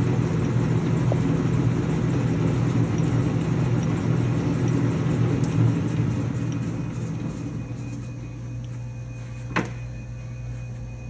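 LeBlond Regal 13-inch engine lathe running in low range at 69 RPM, a steady geared hum from the headstock that winds down after about six seconds, leaving a quieter steady motor hum. A single sharp clunk comes near the end.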